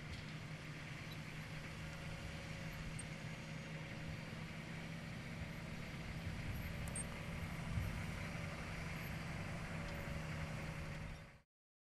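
Military Humvee's diesel engine running steadily at low revs as the truck crawls over dirt moguls, with a brief thump about eight seconds in. The sound cuts off suddenly near the end.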